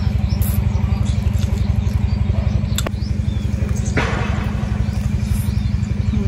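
Steady, rapid low throbbing of an engine running, with a short crunch about four seconds in as a piece of fried pork bone is bitten.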